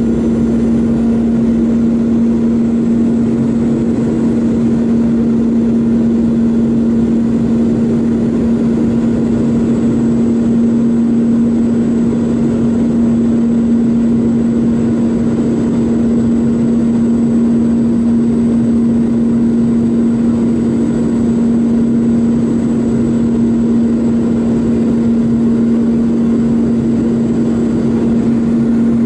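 Cabin noise inside a Boeing 717, heard at a window seat right beside its rear-mounted Rolls-Royce BR715 turbofan: a loud, steady rushing noise with a strong, unchanging hum held at one pitch.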